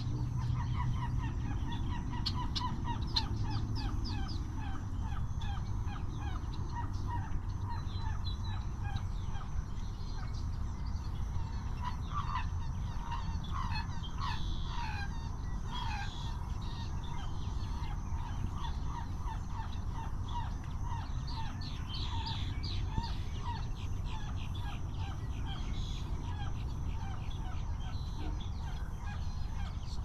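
Several marsh birds calling: long runs of short, quickly repeated calls, busiest about halfway through, with higher chirps mixed in, over a steady low rumble.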